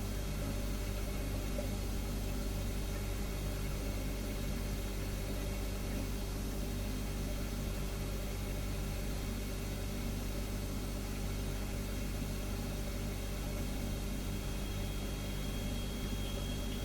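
Refrigerator humming steadily: a low, even compressor drone with several steady tones above it. A faint high whine joins near the end.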